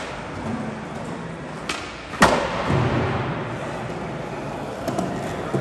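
Skateboard wheels rolling on smooth concrete, with one sharp clack of the board striking the ground about two seconds in and a few lighter clicks near the end.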